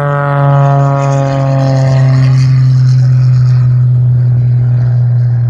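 Propeller-driven display aircraft flying past, its engine and propeller making a loud steady drone whose pitch falls slowly in the first couple of seconds as it passes.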